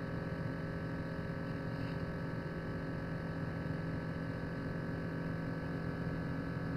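Steady low electrical hum with several fixed tones and a faint hiss, unchanging throughout.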